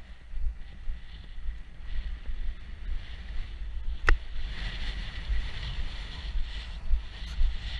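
Wind buffeting the microphone of a camera carried on a running horse, an uneven low rumble with hiss. One sharp click comes about four seconds in.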